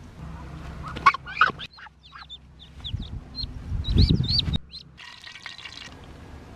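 Muscovy ducklings peeping, a rapid run of short high cheeps, with a low rustling rumble loudest about four seconds in as they are picked up.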